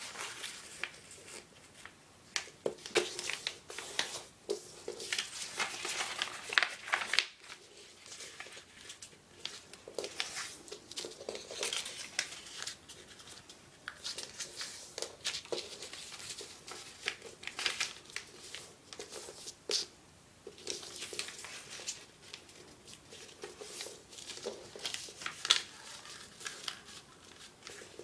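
A sheet of paper being folded and creased by hand, with crinkling rustles and sharp crackles coming in irregular clusters and short pauses between them.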